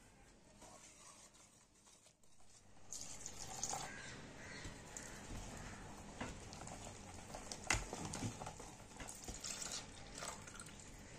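Wire whisk beating flour and milk into a thick batter in a plastic bowl: irregular wet scraping and clicking of the whisk against the bowl, starting about three seconds in, with one louder knock a little past halfway.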